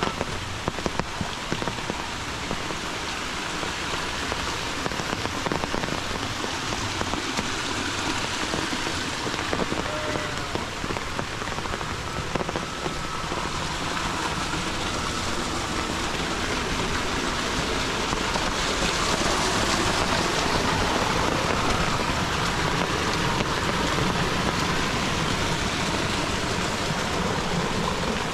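Heavy rain falling steadily on foliage and wet ground, a dense even hiss with a few sharper drop taps near the start. It grows a little louder about two-thirds of the way through.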